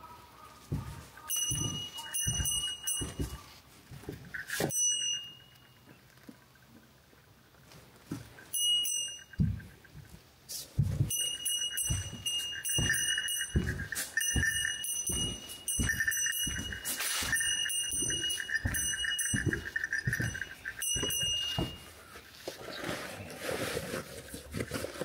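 Footsteps thudding and crunching over a debris-strewn floor, about two a second, while a high bell-like tone rings in short repeated bursts. Near the end the footsteps give way to rustling through dry grass and brush.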